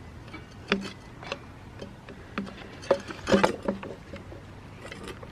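Scattered light clicks and metallic knocks of hand tools and loose parts being handled while an old chainsaw is taken apart, with a quick cluster a little past halfway.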